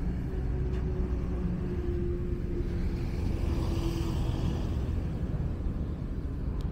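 Road traffic: a steady low rumble, with a vehicle passing about three to four seconds in and its engine hum ending a little before the fifth second.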